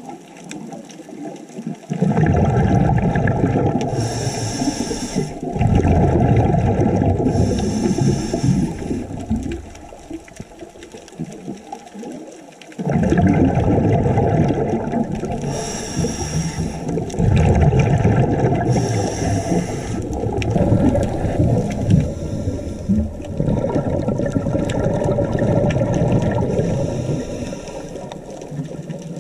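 Scuba diver breathing through a regulator underwater: long rushing, bubbly exhalations with short hissing breaths in between, in two long stretches with a lull of about three seconds midway.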